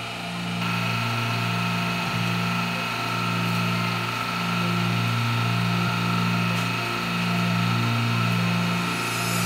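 Hydraulic guillotine press running: a steady mechanical hum with a slow, even pulsing while the blade is driven down through kitchen sponges.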